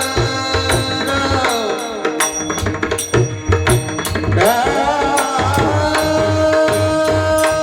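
Kirtan singing: a melodic devotional chant with a gliding voice line, accompanied by drum strokes and bright hand-cymbal strikes keeping an even beat. From about halfway in, the voice holds one long steady note.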